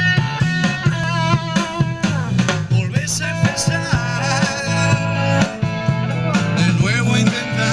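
An original rock song playing: guitar over bass and drums, with a melody line that bends and wavers in pitch.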